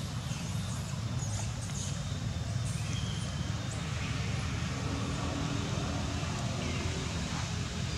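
Steady low background rumble with no clear separate events.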